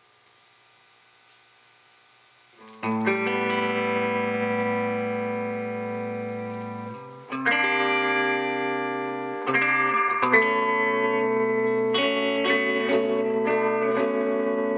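Telecaster Thinline electric guitar played through a Hohner International 100-watt solid-state amp: after a faint steady hum, about three seconds in, a chord is struck and left to ring, followed by a few more long sustained chords a few seconds apart.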